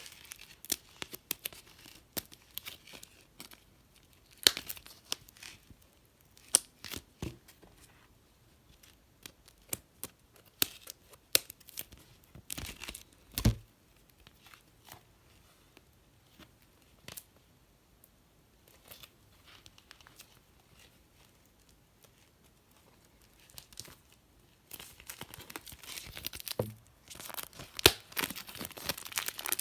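Packaging of an iPad box being opened: scattered crackles and clicks, then near the end a stretch of continuous tearing and crinkling.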